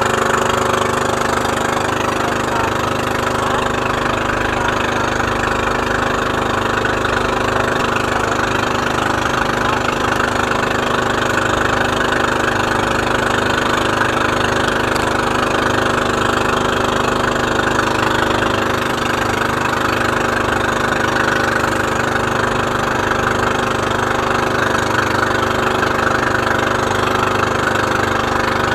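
Engine of a motorized outrigger boat (bangka) running steadily under way, with water rushing and splashing past the hull.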